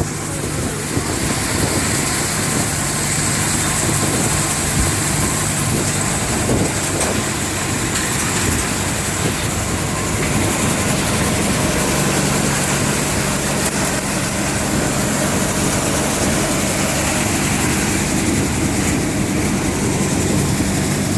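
Multi-crop thresher running steadily: a continuous mechanical rush over a low engine drone, the drone's tone changing slightly about halfway through.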